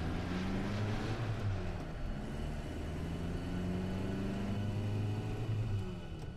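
Heavy stunt truck's engine running under load as it drives toward the stunt ramp, a steady low note that rises and falls slightly in pitch.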